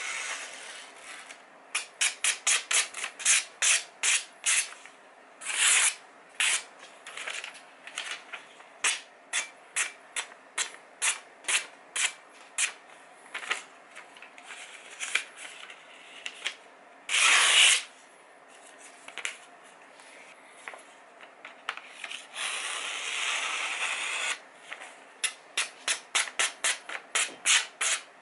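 Freshly sharpened kitchen knife blades slicing through glossy catalogue paper as a sharpness test: quick crisp cuts, often several a second in runs, with a few longer slicing strokes.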